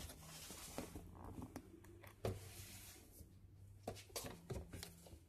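Faint scattered clicks and knocks of a plastic storage box and its contents being handled, over a low steady hum.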